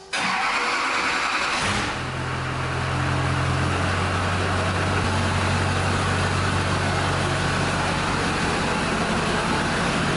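LB7 Duramax 6.6-litre V8 turbodiesel, fitted with new 65% over SAC injectors, being started: a short burst of cranking, then the engine catches about two seconds in and runs steadily.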